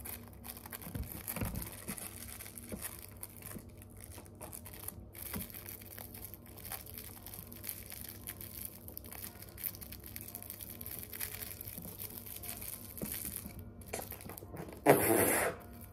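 Thin rolling paper crinkling and rustling softly between the fingers as a joint is rolled by hand. A short, loud burst of noise cuts in near the end.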